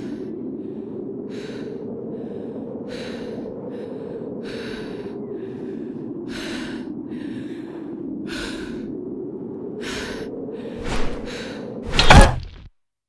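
Footsteps crunching in snow, about one step a second, over a steady low wind. Near the end a loud swing and hit, after which the sound cuts off suddenly.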